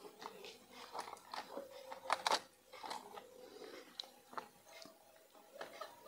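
Faint, irregular small clicks and scratches of a soldering iron working at a toy remote-control truck's circuit board as wires are desoldered from it, the loudest about two seconds in.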